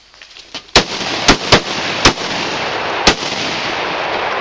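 Shotgun volley at a pair of incoming mallards: five sharp shots over about two and a half seconds, the middle ones close together, which bring down both ducks. A loud steady rushing noise runs under and after the shots.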